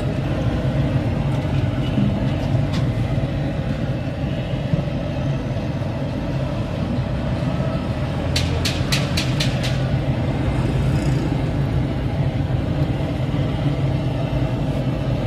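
Steady low rumble of street background noise, with a quick run of about six sharp clicks a little past the middle.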